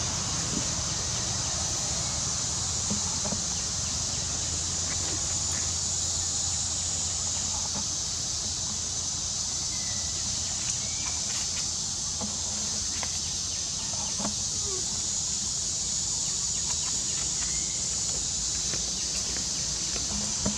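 Outdoor ambience: a steady high hiss over a low rumble, with a few faint, short chirping calls scattered through it.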